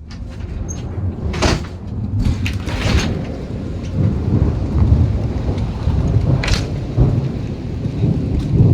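Thunderstorm: rain falling over a steady low rumble, with a few sharp taps and cracks, growing louder over the first seconds.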